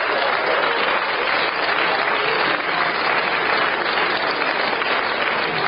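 Audience applauding steadily, a dense even clapping that starts to die down at the very end.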